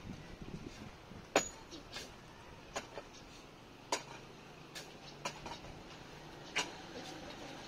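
Hand digging tool chopping into dry ground, digging a foundation trench by hand: about seven sharp strikes at an uneven pace.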